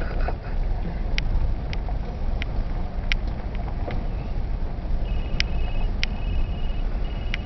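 Vehicle rolling slowly over a gravel track, heard from inside the cab: a steady low rumble of engine and tyres, with scattered sharp ticks and knocks. About five seconds in, a faint high pulsing chirp comes and goes.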